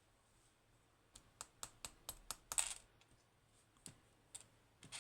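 Small metal parts of a Codkey Locksys lock clicking and tapping as the lock is taken apart. A quick run of sharp clicks starts about a second in, then a few scattered ones follow.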